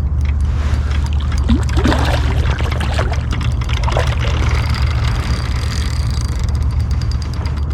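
Creek water rushing steadily, with a heavy low rumble, while a steelhead is played on the line; a run of rapid fine clicks comes in near the end.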